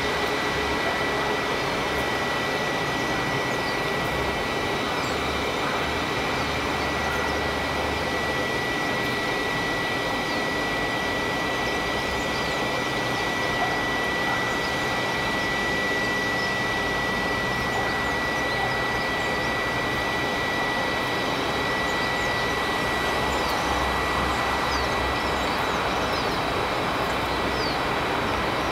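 Steady outdoor background noise: a constant low rumble and hiss with a thin, unchanging high whine, and faint high chirps here and there.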